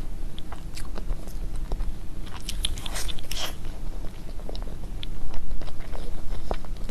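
A person eating cake close to the microphone: chewing with small wet clicks, and a louder bite about two and a half to three and a half seconds in.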